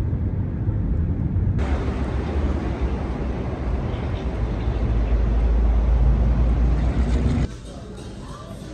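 Steady low rumble of car road noise inside a moving car. About a second and a half in, it gives way to a louder low outdoor rumble, and near the end it drops to the quieter sound of a shop interior.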